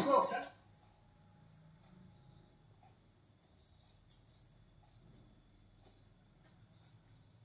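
Crickets chirping faintly in short repeated pulses, the night ambience of a film soundtrack heard through a television's speaker.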